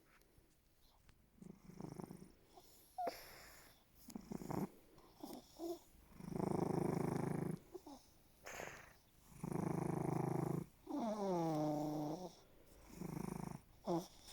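Domestic cat purring and snoring at once, a purr on each breath. The breaths start faint and grow louder after a few seconds. One breath about eleven seconds in carries a whistling tone that slides in pitch.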